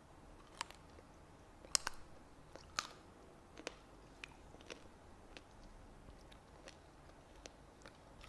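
Close-up biting and chewing of a hard, sugar-crusted jalebi: a string of sharp crunches, most of them in the first three seconds and fewer after that.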